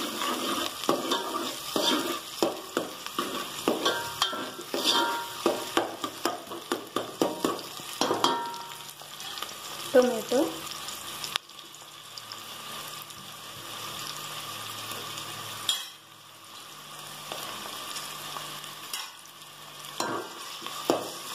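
Chopped onions sizzling in hot oil in a metal pot, with a spoon stirring and scraping against the pot in quick strokes. About halfway through the stirring stops and a steady, quieter sizzle is left; near the end the stirring clatter starts again.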